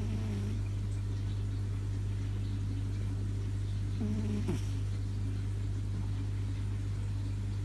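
A sleeping Scottish Fold cat snoring, two short, low, pitched snores about four seconds apart that slide down in pitch. The recording is heavily amplified, so a loud steady electrical hum runs underneath.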